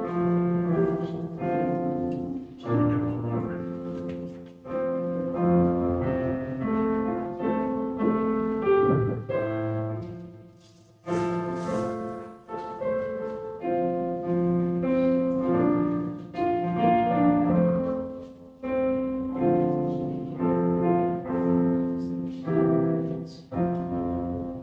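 Piano music: a solo piece of chords and melody, each note struck and fading. It pauses briefly about ten seconds in and stops at the end.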